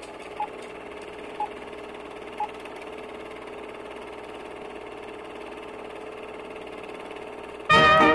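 Film-leader intro effect: a steady projector-like whirr with three short beeps a second apart. Brass jazz music starts suddenly near the end.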